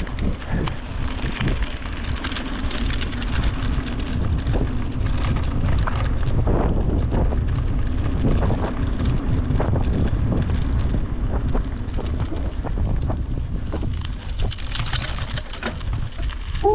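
Mountain bike rolling fast over a gravel trail: tyres rumbling on loose stones, with frequent small rattles and knocks from the bike and a steady hum, under wind buffeting the microphone.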